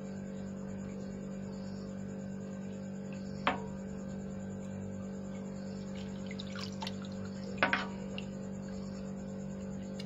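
Hands working pieces of soaked saltfish in a steel pot of water: a few small splashes and drips, one about three and a half seconds in and a cluster near seven to eight seconds, over a steady low hum.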